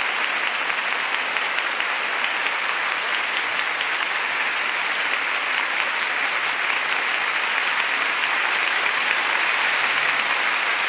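Large theatre audience applauding steadily, a dense even clapping that swells a little near the end.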